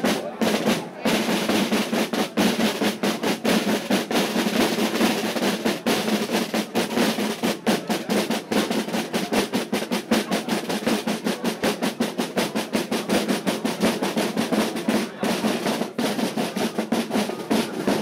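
A corps of drummers playing marching drums together: dense, continuous strokes and rolls.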